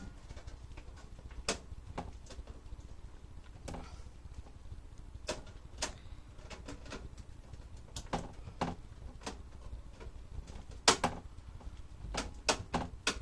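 Screwdriver driving screws into a computer case fan, heard as irregular sharp clicks and small scrapes of metal and plastic, a few seconds apart at first and then in a quick cluster near the end, over a low steady hum.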